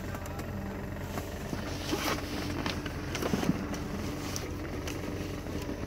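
A car's power antenna motor whirring steadily as it is worked from the under-dash antenna switch, with a few clicks from the controls, over a steady low hum.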